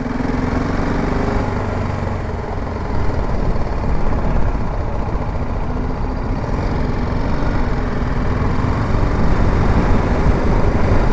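Motorcycle running steadily while being ridden through city traffic. Its engine hum is mixed with wind and road noise on the handlebar-mounted microphone.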